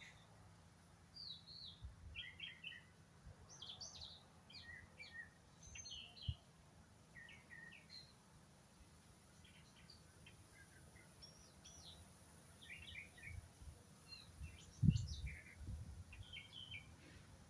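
Several wild birds chirping and singing, short high chirps coming one after another throughout. A few low thumps cut in, the loudest about fifteen seconds in.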